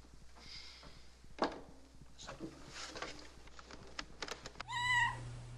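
Faint handling noises as an acoustic guitar is lifted off a wooden table: a knock about a second and a half in and scattered light clicks. Near the end comes a short high-pitched cry.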